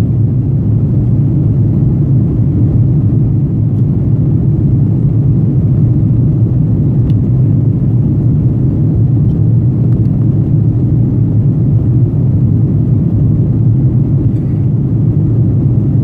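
Jet airliner cabin noise in flight: the engines and rushing air make a loud, steady, deep rumble with no change in pitch.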